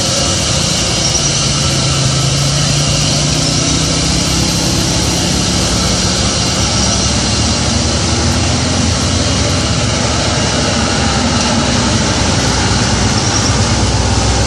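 Truck engines running as heavy trucks work around a steep hairpin bend, with a slowly rising engine note, mixed with the engines of passing cars and motorcycles.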